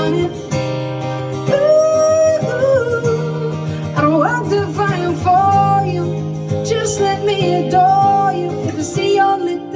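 Singing with no clear words over guitar accompaniment, in long held, wavering vocal lines.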